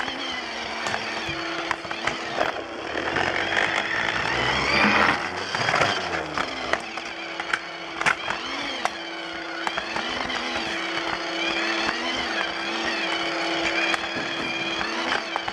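A Lego Duplo battery train's motor running with a steady whine as it travels, its wheels clicking over the joints of the plastic track.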